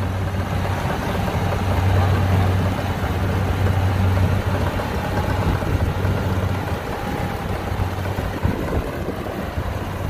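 Kubota DC70 combine harvester's diesel engine running steadily while the machine cuts and threshes lodged rice. Its low hum eases a little in the second half as the harvester moves off.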